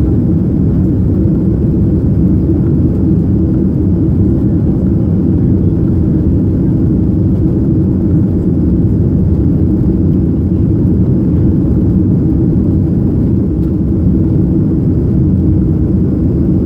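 Jet airliner cabin noise while climbing after takeoff, heard from a window seat over the wing: a steady, loud, low rumble of engines and rushing air that does not change.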